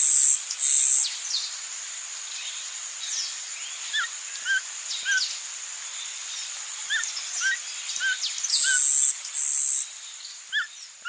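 Forest ambience sound effect: birds chirping with short repeated calls and quick falling whistles over a steady hiss. The loudest sounds are high buzzing calls in two pairs, one at the start and one near the end.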